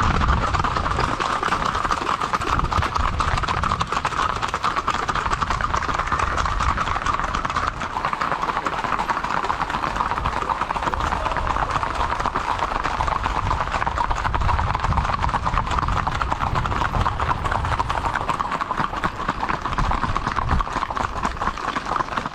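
Horses' hooves clip-clopping on hard ground in a fast, continuous patter of many overlapping hoofbeats from a group of riders.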